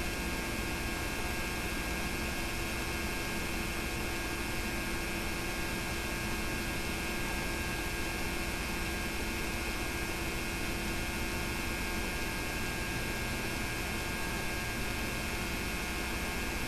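Steady electrical hum with an even hiss, several fixed tones over a noise floor: the background noise of the narration and tape transfer of a silent home movie, with no other sound in it.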